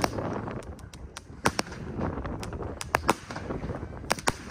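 Aerial fireworks bursting overhead: a run of sharp bangs and cracks at irregular intervals, the loudest about one and a half, three and four seconds in.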